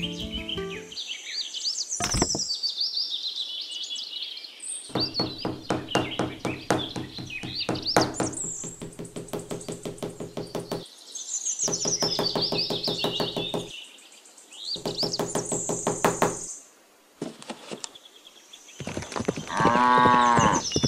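A small hammer tapping a wooden post, in bursts of rapid knocks, over birds chirping. Near the end comes one long, drawn-out farm-animal call.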